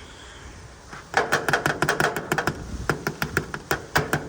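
Quick, irregular run of sharp clicks and rattles starting about a second in: hand work fitting the hard start kit's black wire onto the AC contactor's line terminal.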